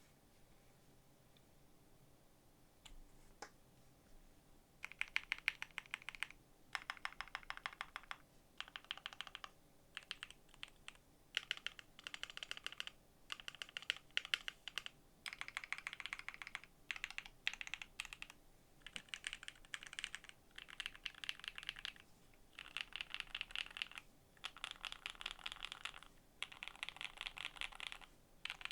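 Typing on a KBDFans D65 mechanical keyboard with lubed Tangerine linear switches, GMK ABS keycaps and a foam-dampened, gasket-mounted FR4 plate. After a few isolated clicks, rapid keystrokes start about five seconds in and go on in bursts with short pauses between them.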